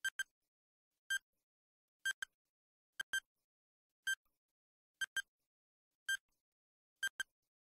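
Countdown timer sound effect ticking about once a second, each tick a short, bright click and some of them doubled, counting off the seconds left to answer.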